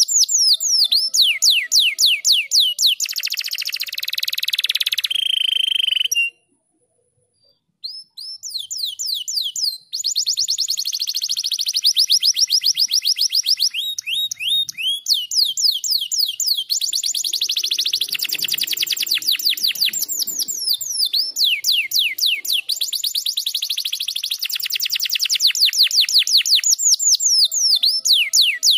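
Domestic canary singing in long, fast trills of rapidly repeated notes, each sweeping downward. A harsher, buzzier phrase ends in a short held note, followed by a break of a second or two a few seconds in. After that, the rolling trills resume and carry on.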